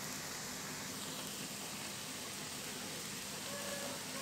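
Eggplant pieces simmering without oil in chili paste and water in a non-stick frying pan, giving a steady bubbling hiss as the added water boils off.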